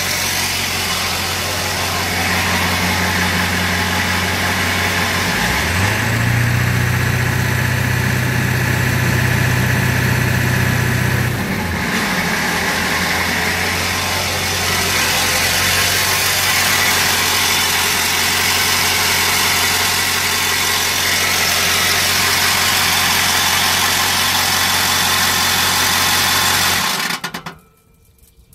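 2000 Ford 7.3L Power Stroke V8 turbodiesel idling with the rough idle that is being diagnosed. About five seconds in it is brought up to a higher steady speed for about six seconds, then drops back to idle. Near the end the sound stops abruptly.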